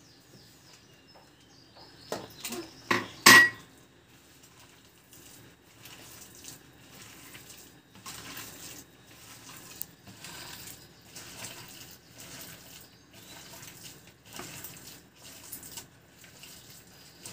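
A hand mixing shredded cabbage and carrot with flour and water in a plastic bowl: soft, irregular rustling and squishing strokes. A few sharp knocks about two to three seconds in, the loudest just after three seconds.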